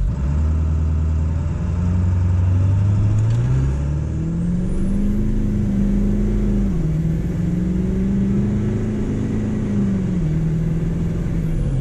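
Ford 7.3 L Powerstroke V8 turbo-diesel at full throttle from a standstill, heard inside the truck's cab. The engine note climbs steadily and drops three times as the transmission shifts up.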